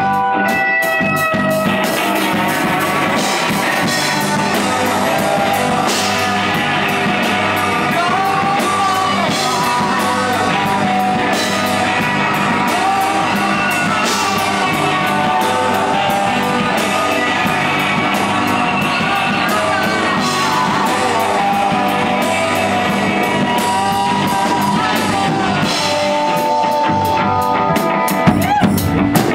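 Live rock band playing: electric guitars, bass guitar and drum kit, with a lead vocalist singing through most of it. Near the end the singing stops and guitar notes and drum hits come forward.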